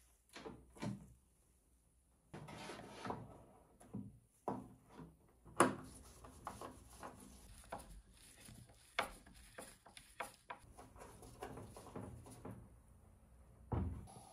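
Handling noise as a larger BLDC motor is fitted into its bracket and screwed down with a screwdriver: irregular clicks, knocks and rubbing, with the sharpest knock about five and a half seconds in.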